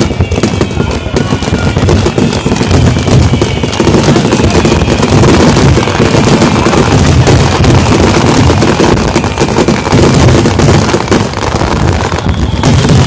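A fireworks barrage: many shells bursting in quick succession, with dense crackling and booming that never pauses. A falling whistle rises over the bursts near the end.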